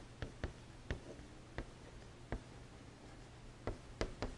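Chalk tapping and scraping on a chalkboard as a line of handwriting is written: faint, irregular clicks, about eight of them, a fraction of a second to a second apart.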